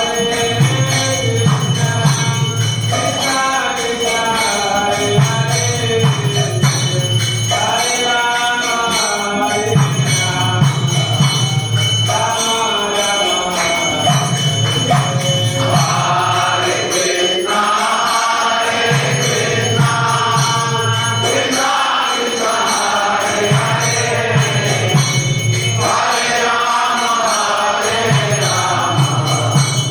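Devotional kirtan singing during a Hindu temple aarti, with bells ringing continuously under the voices.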